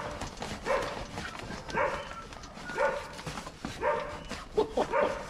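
A dog barking repeatedly in short single barks, about one a second.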